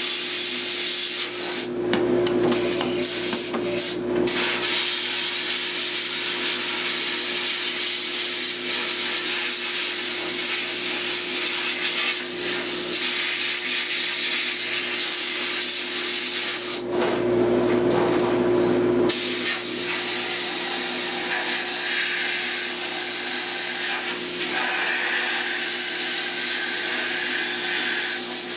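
Glass bead blast cabinet running: a steady hiss of air and beads from the blast nozzle as rust is blasted off a water pump, over a steady hum. The hiss cuts out twice for about two seconds, about two seconds in and again past the middle.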